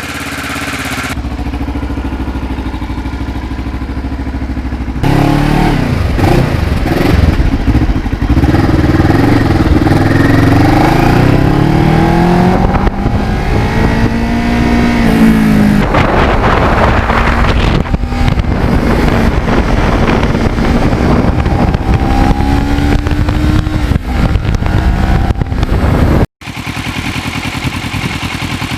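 Kawasaki Ninja 650R's parallel-twin engine running, then from about five seconds in accelerating, its revs rising and falling again and again. The sound drops out for an instant near the end and comes back steadier.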